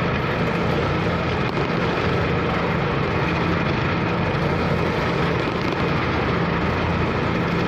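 Car ferry's engines running steadily: a constant low drone under a rushing noise of wind and water.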